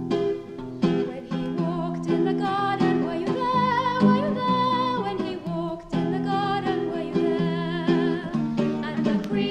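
Folk music: acoustic guitar chords played with a sung melody held on long, wavering notes.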